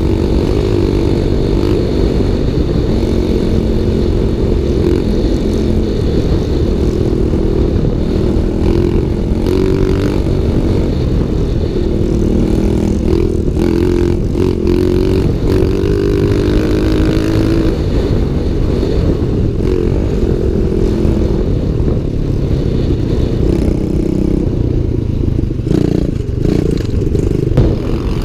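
Pit bike's small single-cylinder engine running under throttle as the bike is ridden, its pitch rising and falling with the revs. Near the end come clattering knocks as the bike crosses rutted dirt.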